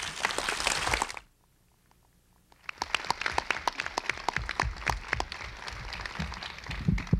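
Audience and panel applauding, a dense patter of many hands clapping. It cuts out to near silence about a second in and resumes a second and a half later.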